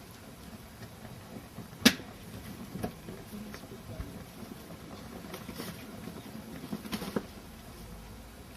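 A sharp click about two seconds in, then a few softer clicks and knocks near the end, over a low steady background rumble.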